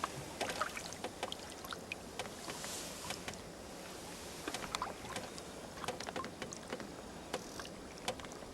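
River water lapping and trickling steadily, with many small irregular splashes and clicks.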